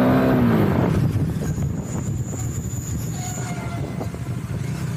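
Bajaj Dominar 400's single-cylinder engine revving with its pitch rising, then falling off about a second in as the throttle closes, settling to a lower steady running. A faint high steady tone sounds for about two seconds in the middle.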